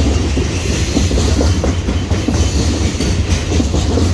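Loaded coal train's hopper cars rolling past at steady speed: a continuous low rumble with dense wheel clicking and clanking over the rails.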